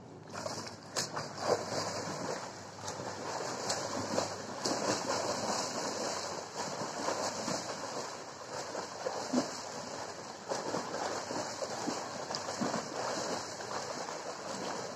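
Water splashing as a swimmer swims front crawl with fins: steady splashing from the arm strokes and the finned kick, with louder splashes at irregular moments.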